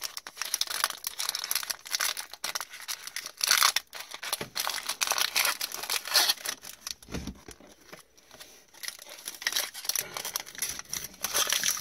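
Foil wrapper of an Upper Deck Chronology hockey card pack being torn open and peeled back by hand: irregular crinkling and tearing, quieter for a moment past the middle.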